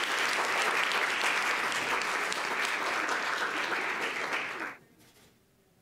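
Audience applauding, a dense spread of handclaps; it stops abruptly about four and a half seconds in, leaving near silence.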